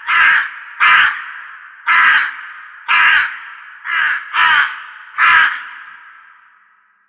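A crow cawing, about seven harsh caws roughly once a second, two of them close together midway, each trailing off in an echo.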